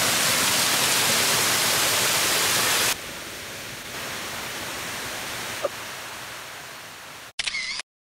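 Rushing water of a small jungle stream spilling over rocks: a steady rush, loud for about three seconds, then cut abruptly to a quieter steady rush with a single faint click. The sound stops suddenly just before the end.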